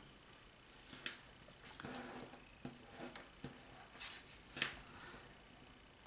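Nylon paracord being handled and pulled tight into a knot: soft rustling and rubbing of the cord, with two sharp snaps, one about a second in and a louder one a little past halfway.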